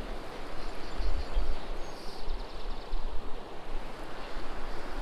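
Stream water rushing steadily, with wind buffeting the microphone in uneven low gusts.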